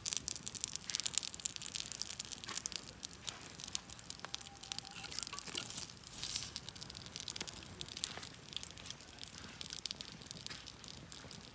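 Wood fire crackling, with a dense, irregular run of small pops and snaps.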